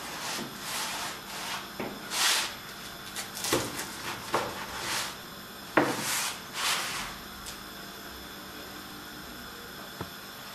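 A knife crunching and sawing through the toasted crust of a grilled lavash-wrapped shawarma on a wooden cutting board, a series of short crisp strokes, with the pieces shifted on the board. The strokes stop about seven seconds in, leaving quiet room tone.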